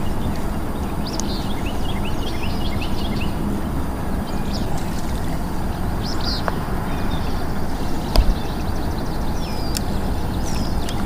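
Small birds chirping and calling over a steady rushing background, with a single sharp knock about eight seconds in.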